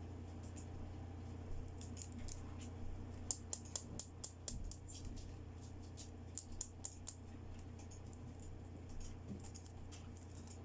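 Light clicks and taps of small hard plastic toy accessories being handled during unboxing, in a quick cluster about three seconds in and again around six and a half seconds, over a steady low hum.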